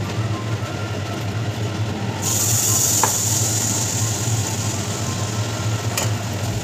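Gur pitha batter sizzling as it is ladled into hot oil in an aluminium kadai, a loud hiss that starts suddenly about two seconds in and keeps going. A steady low hum underlies it.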